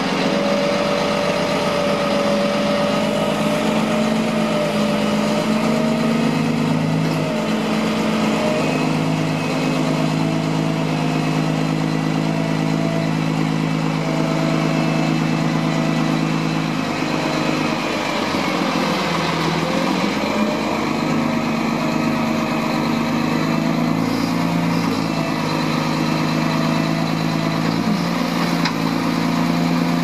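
Roll-off truck's diesel engine running steadily to power the hydraulic hoist while a loaded roll-off dumpster is pulled up the tilted bed and the bed is lowered. A held whine sits over the engine, its pitch sagging briefly a little past halfway.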